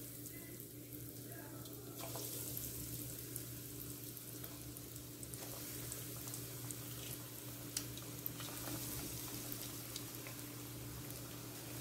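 Hot oil in a kadai sizzling softly as breadcrumb-coated curd rice balls are dropped in one by one to deep-fry. The sizzle thickens about two seconds in, with scattered small crackles over a faint steady hum.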